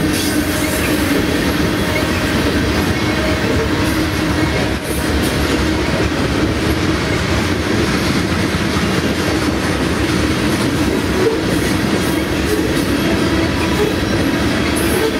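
Coal hopper cars of a freight train rolling steadily past, their steel wheels clattering over the rails in a continuous loud rumble.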